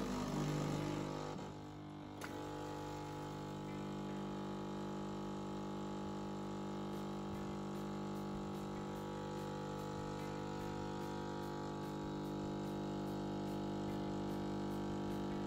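Siemens EQ.300 bean-to-cup coffee machine brewing espresso for a latte macchiato. A rougher whirr in the first second or two and a click about two seconds in give way to a steady pump hum as the coffee runs into the glass.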